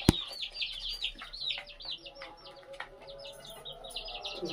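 Aseel chicks peeping: a rapid string of high, downward-sliding peeps, several a second, with one sharp knock right at the start.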